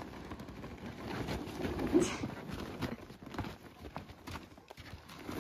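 Rustling and irregular knocking of a heavy yellow gear bag being hauled out of an SUV's cargo area and handled, with a louder scuffle about two seconds in.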